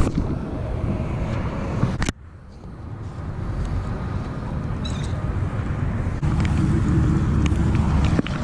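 Steady rumble of highway traffic, heavy in the low end. It drops away suddenly about two seconds in, then builds back up to a strong rumble.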